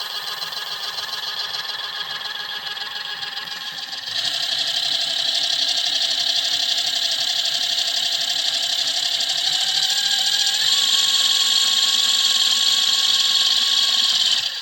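Electric motor and gear drivetrain of an RC truck running with its wheels spinning freely, a steady whine. It gets louder about four seconds in as the throttle is raised, shifts up slightly in pitch near ten seconds, and cuts off suddenly at the end.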